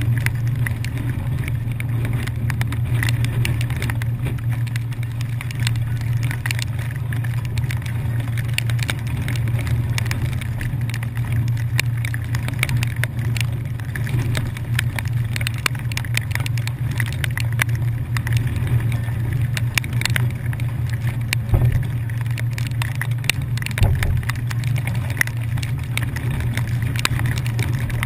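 Steady low drone of a commuter ferry's engines, heard on the open deck, with scattered ticks of rain hitting the camera housing.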